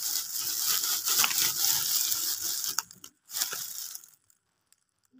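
Deflated latex balloons rustling and crinkling as they are dropped in a heap onto artificial grass. The sound is continuous for about three seconds, comes again in a shorter burst, and stops about four seconds in.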